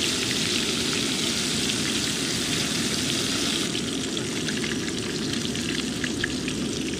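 Catfish chunks frying in canola oil in a cast-iron skillet: a steady crackling sizzle, with a few faint ticks in the second half.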